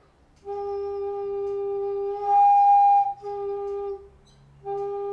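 Homemade wooden Native American-style drone flute playing a steady low note. About two seconds in it breaks up an octave, louder, for nearly a second, then drops back to the low note: the flute overblows to the octave with only slightly harder breath, so it has to be blown very softly to hold the low note. The note stops briefly about four seconds in and then sounds again.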